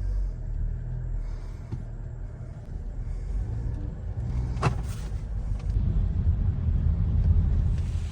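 Car running with a steady low rumble that grows louder over several seconds, with a single sharp tick partway through, then cuts off abruptly near the end.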